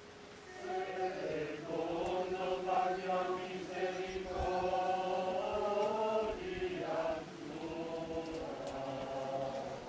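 A group of voices singing a slow liturgical chant in phrases, with long held notes.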